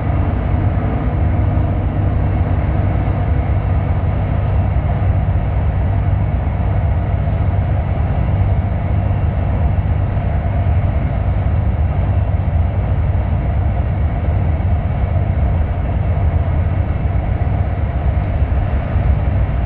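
Steady low rumble of engine and tyre noise inside a moving vehicle's cabin at highway speed, heard through closed windows.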